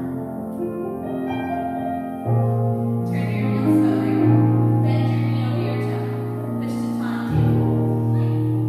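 Background music led by piano, with held chords that change about two seconds in and again near the end.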